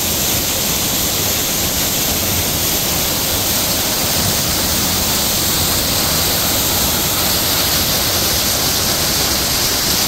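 Small seasonal waterfall that flows only after rain, pouring down a steep mossy rock face close to the microphone: a loud, steady rush of falling water.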